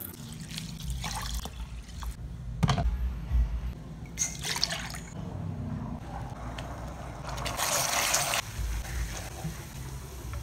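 Wet cooking sounds: a wooden spoon stirring soaked black glutinous rice, then coconut milk simmering and being stirred in a steel pan. The sound is irregular swishing and sloshing, with a few sharp knocks of the spoon.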